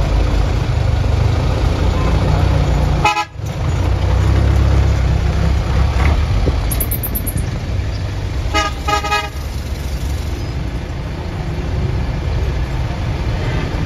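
Congested road traffic heard from inside a car: a steady low rumble of engines, with a short horn toot about three seconds in and two quick horn honks near nine seconds.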